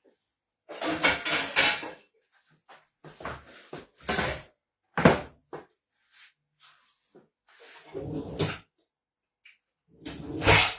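Kitchen handling sounds: a series of short knocks and clatters, like cupboard doors and cookware being moved, in separate bursts with the loudest near the end.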